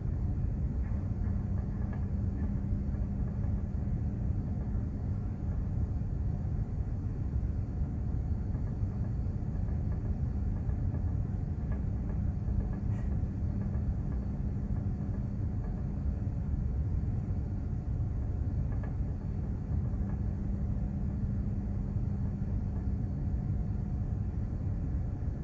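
Steady low rumble aboard a container ship under way at sea. A faint steady hum comes in over it twice.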